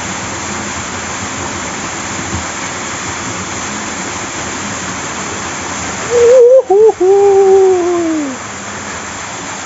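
Steady rush of flowing river water. About six seconds in, a loud wordless human call: two short cries, then a long drawn-out call that falls in pitch.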